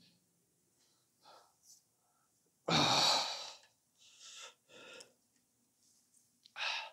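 A person's loud sigh about three seconds in, followed by quieter breaths.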